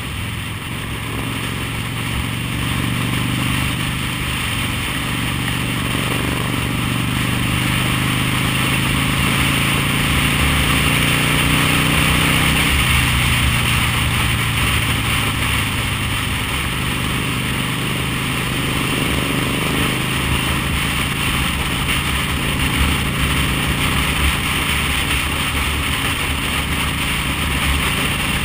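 V-twin cruiser motorcycle engine running on the road with wind rushing over the microphone. The engine pitch climbs steadily and drops off suddenly about halfway through, as at a gear change, then rises again.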